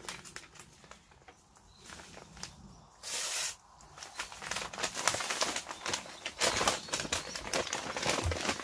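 Paper sugar sack being gripped, tipped and shifted, crinkling and rustling, with a short hissing rush about three seconds in and denser crackling in the second half.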